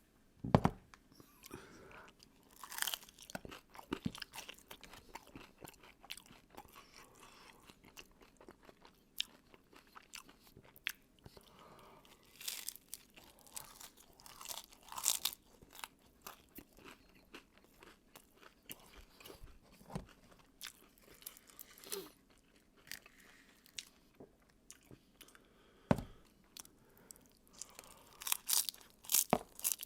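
Close-miked eating of a crunchy taco shell: sharp, crisp crunches at each bite with quieter chewing between. The loudest bites come about half a second in and in a quick run near the end.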